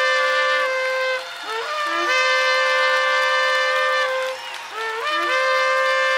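Shofar blasts: a long held note ends about a second in, then two more blasts follow, each starting with a short lower note that leaps up to a long steady held tone.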